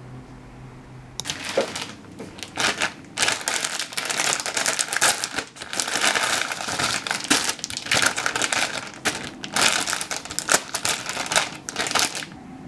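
Crinkling and crumpling of something being handled, in uneven bursts that start about a second in and stop near the end.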